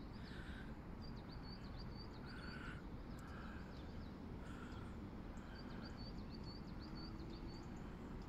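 Small bird singing two runs of rapid, high chirps, each about two seconds long, over faint outdoor background noise.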